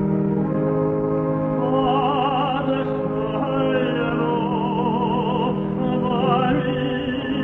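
Cantor singing with strong vibrato over held accompaniment chords. The voice enters about one and a half seconds in, above the sustained chords.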